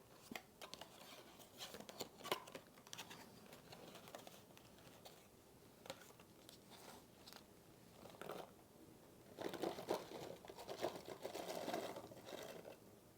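Cereal slime being slowly stretched and folded by hand: faint, scattered crackling that grows denser and louder about nine to twelve seconds in.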